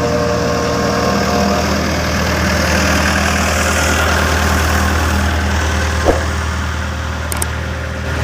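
Engine of heavy road-construction machinery running steadily at a low hum, with one short knock about six seconds in.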